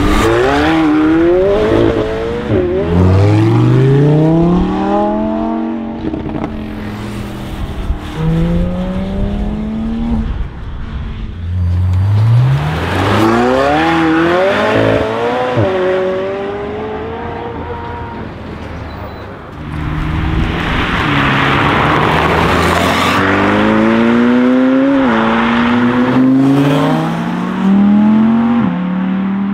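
McLaren 720S twin-turbo V8 supercars accelerating hard, several times over, engine pitch rising through each gear and dropping sharply at each upshift. About two-thirds of the way in, a few seconds of loud rushing noise sit over the engine.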